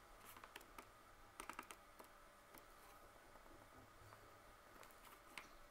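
Faint clicks of a Casio scientific calculator's keys being pressed: a few scattered presses, with a quick run of three or four about a second and a half in.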